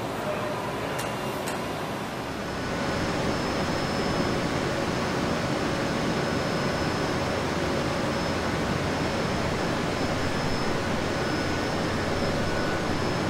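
Steady machine-shop hum with two light clicks, then, from about two and a half seconds in, the louder steady running noise of an industrial 3D printer with a faint constant high whine.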